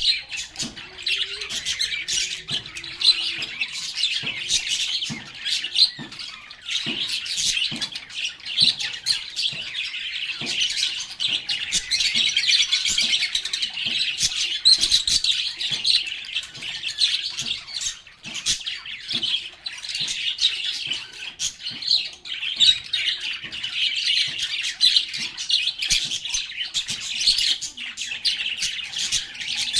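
A group of lovebirds chirping and squawking, a dense, unbroken chatter of overlapping high-pitched calls.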